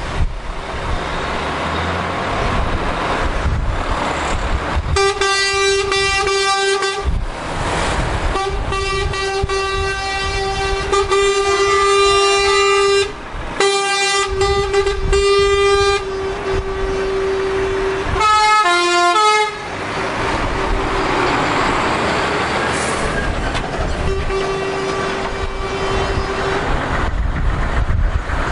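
Truck air horns sounded by lorries passing in a convoy: long blasts on one steady horn note, repeated with short breaks for about ten seconds from about five seconds in, then a brief horn of several stepping notes, and one more steady blast near the end, over truck engines running and tyre and wind noise.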